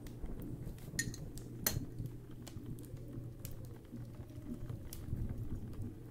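A tobacco pipe being puffed while it is lit with a match: small clicks and soft lip pops from the smoker's draws, two sharper ones a little after a second in, over a steady low hum.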